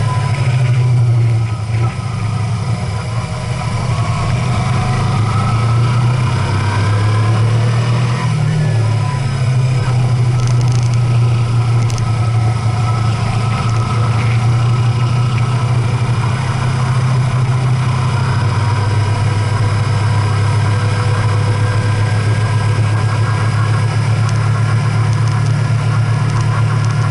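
A vehicle's engine running steadily under way, its low note stepping to a new pitch a few times as engine speed changes, with road noise over it.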